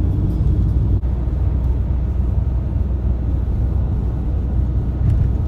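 Steady low road and engine noise of a bus cruising on a highway, heard from inside its cabin.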